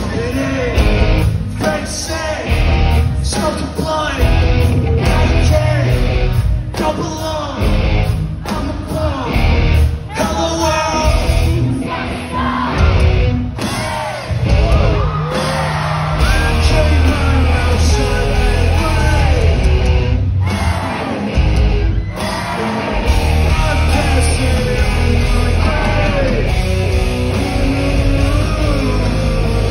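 Live rock band with distorted electric guitar, bass and drums, and singing and yelling over it. Through the first half the band plays in short stabs with brief gaps between them, then it runs steadily.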